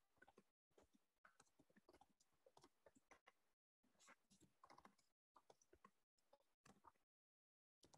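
Faint computer keyboard typing: quick runs of key clicks with short pauses between them.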